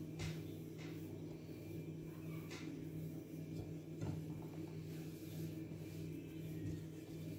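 Wooden rolling pin rolling out cornstarch-dusted dough on a countertop: a few soft knocks and brushing sounds as the pin and hands work and turn the sheet, over a steady low hum.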